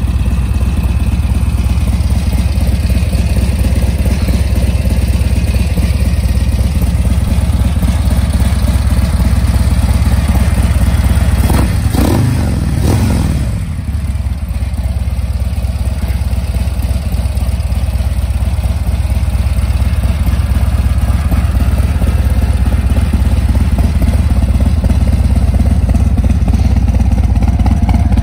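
Harley-Davidson CVO Ultra Limited's Milwaukee-Eight 114 V-twin idling steadily through its twin exhausts, with a deep, even rumble.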